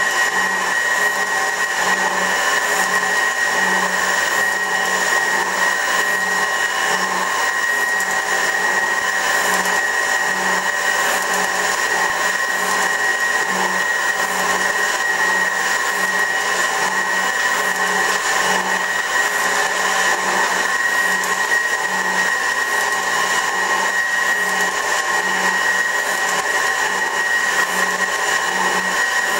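A 24-inch Värnamo metal shaper running as it takes a cut: a steady mechanical whine with one strong high tone, and a low pulse that repeats regularly with the working strokes of the ram.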